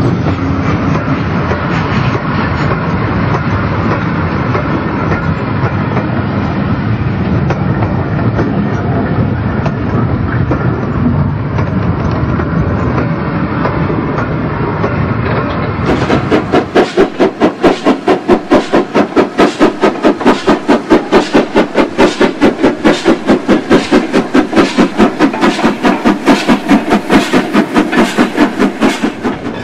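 OO gauge model freight train of loaded coal wagons rumbling and clicking along the track behind a Bachmann LMS Crab steam locomotive. About halfway through the sound changes to the Crab close up, with a steady chuffing of about four beats a second from its sound decoder.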